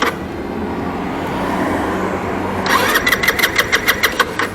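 Rusi RFI 175 scooter's electric starter cranking the single-cylinder engine: a rising whine about two and a half seconds in, then a quick regular chugging that stops after about a second and a half without the engine catching. The engine is being cranked after the fuel line was taped over a cracked injector hose joint, and it seems short of fuel.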